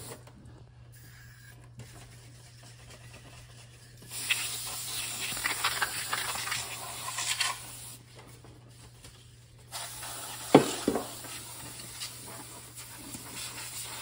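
Compressed-gas duster can spraying in long hissing bursts onto a refrigerator's condenser coil: one of about three and a half seconds starting four seconds in, and another from about ten seconds to the end. A sharp knock about ten and a half seconds in.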